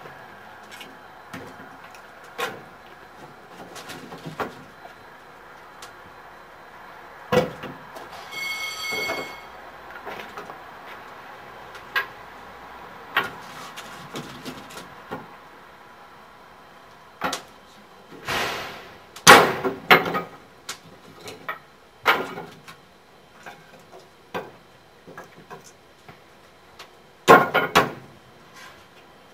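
Irregular metal knocks, clanks and scrapes from work on a steam locomotive being fired up, with a short high squeak about nine seconds in. Louder clattering scrapes come around twenty seconds in and again near the end.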